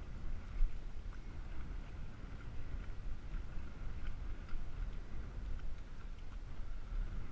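Steady low rumble of wind on the microphone out on the water from a boat, with a faint steady high tone and a few light ticks.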